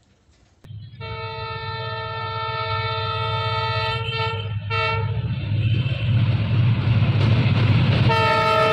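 Diesel locomotive horn sounding a long chord of several tones, briefly broken near its end, then sounding again near the end, over the low steady rumble of the approaching locomotive's engine, which grows louder.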